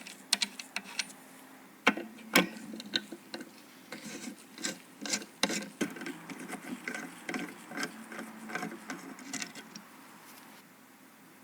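Clicks, taps and light scraping of computer parts being handled and fitted together during a PC build. Two sharper knocks come about two seconds in, then a run of quick light clicks that tails off near the end.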